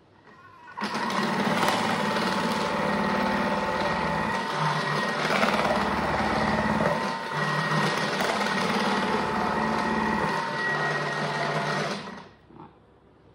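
Thermomix TM6 motor driving the Cutter attachment, thinly slicing a red onion fed down the feed tube: a steady motor whine that starts about a second in and stops near the end.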